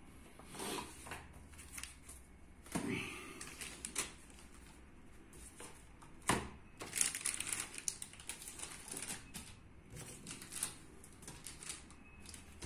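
Plastic-bagged motherboard accessories and the cardboard box being handled: intermittent rustling and crinkling of plastic with light clicks. A sharper knock comes about six seconds in, followed by a second or so of denser crinkling.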